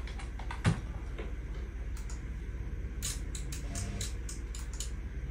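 Computer keyboard and mouse clicks as the test input level is stepped up: one sharp click, then a quick run of clicks about three seconds in, over a steady low hum.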